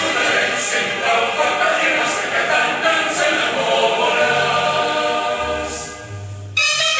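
Mixed choir singing sustained notes, with low bass notes underneath. A little after six seconds the singing gives way abruptly to a brighter, fuller passage of music.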